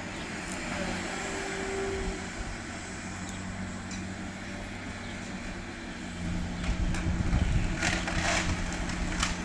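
Liebherr 954 demolition excavator's diesel engine and hydraulics running with a steady hum, growing louder about six seconds in as the machine works under load. Near the end come a few sharp crashes of demolition debris.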